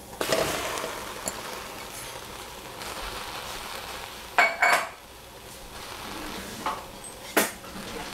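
Raw eggplant chunks tumbling from a metal bowl into a stainless steel pot, followed by a light steady rustle. About halfway through come two sharp, ringing metal clinks, and two more knocks near the end, as the bowl hits the pot.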